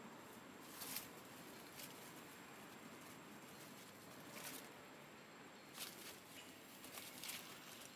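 Near quiet, with a handful of brief soft rustles and ticks, about five spread through the stretch, as monkey fur shifts and brushes close to the microphone.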